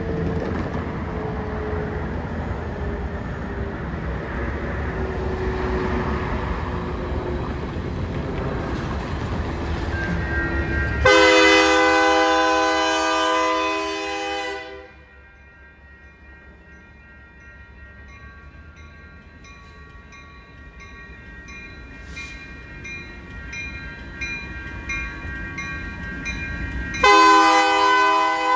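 Union Pacific freight locomotive 4037 rumbling past, then sounding its air horn in a long blast about eleven seconds in and a shorter one near the end, with faint evenly repeating dings between the blasts. The horn is blown as a warning because the crossing signals had stopped activating.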